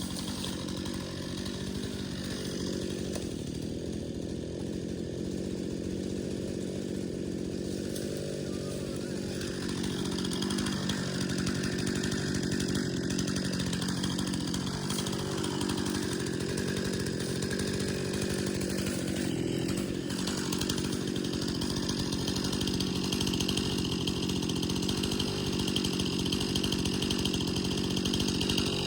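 Gas chainsaw running steadily at high speed, cutting into a bitternut hickory, getting louder about a third of the way in.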